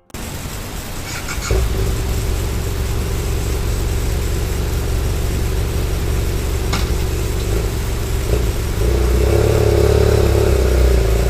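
BMW F800GS motorcycle's parallel-twin engine starting about a second and a half in and running steadily, picking up a little and getting louder near the end.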